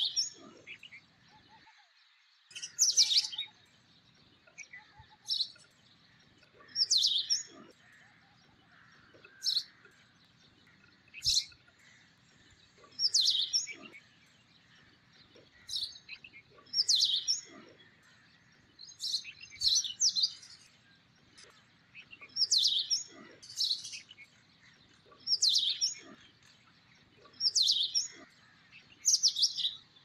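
A small songbird repeating short, high-pitched chirps about every two seconds, some coming in quick pairs.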